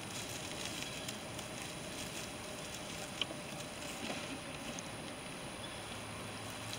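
Weeds being pulled by hand from loose garden-bed soil and dropped into a plastic bucket: soft rustling of leaves and stems with a few light ticks, one sharper about three seconds in, over a steady outdoor hiss.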